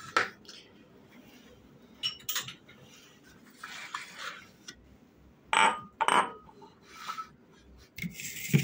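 Glass goblets and a serving plate set down on a marble countertop. There is a knock at the start, a few light clinks, then two sharper glass-on-stone clinks about five and a half and six seconds in. A steady hiss starts near the end.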